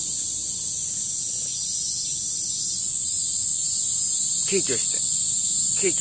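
Cicadas singing in a steady, high-pitched chorus with no break.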